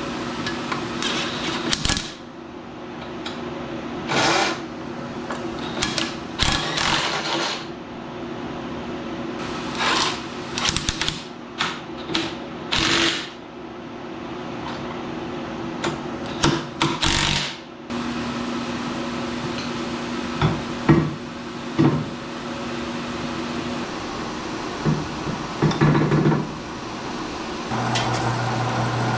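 Cordless impact wrench running in short rattling bursts, about six of them, as it loosens and tightens the vise bolts on a metal-cutting bandsaw. A steady hum from a shop heater and fan runs underneath, and a deeper motor hum starts near the end.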